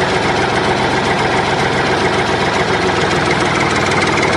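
Tractor engine sound effect: an engine idling steadily with an even, rapid beat.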